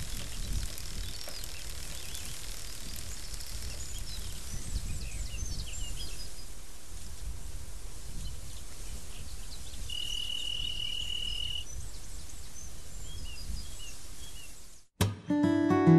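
Outdoor ambience: a low rumble of wind with scattered short bird chirps and one steady high whistled note held for about a second and a half. Near the end it cuts off abruptly and strummed acoustic guitar music begins.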